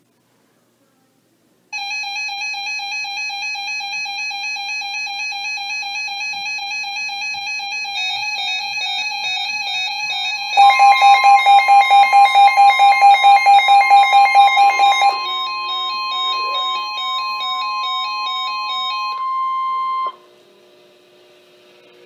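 Several NOAA weather radios sounding their electronic alert tones together as a flash flood warning comes in. Steady and pulsing beeps are layered, and about halfway a louder rapid beeping of about four a second joins a steady higher tone, the weather radio warning alarm tone. All the tones cut off a couple of seconds before the end.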